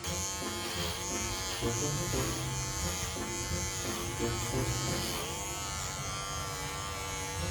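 Electric dog clippers buzzing steadily while shaving a golden retriever's long coat, the hum dipping in pitch now and then.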